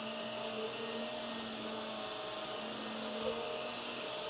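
Hoover WindTunnel Tangle Guard upright vacuum running steadily on carpet: a constant motor and airflow noise with a high whistle and a low hum over it. Its sounds are a little strange, a bit obnoxious.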